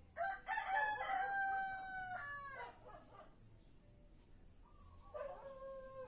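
A rooster crowing: one long crow of about two and a half seconds that drops in pitch at its end, followed about five seconds in by a second, fainter pitched call.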